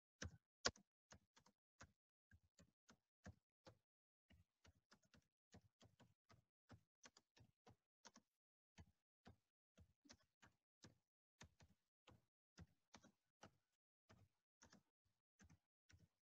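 Faint computer keyboard keystrokes as someone types a line of text, short clicks at about three a second with brief pauses between words.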